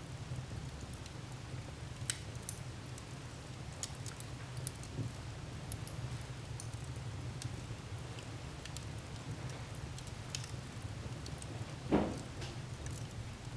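Wood fire crackling in a fireplace: a steady low rumble of the flames with scattered sharp pops and snaps, the loudest one near the end.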